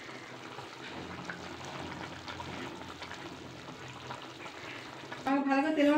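Cauliflower and potato curry bubbling at a steady boil in a karahi on a gas stove, its water just added to the spiced vegetables. A woman's voice starts near the end.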